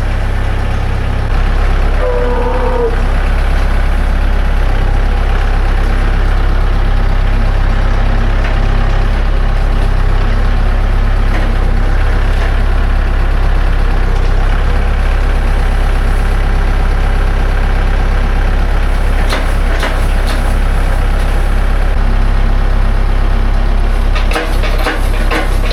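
Tractor engine running steadily at a constant speed, with a brief wavering high note about two seconds in and a few sharp knocks near the end.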